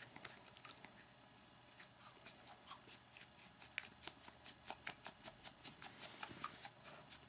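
Beagle licking itself: faint, quick wet clicks of tongue and mouth, sparse at first, then a regular run of about four a second from about two seconds in.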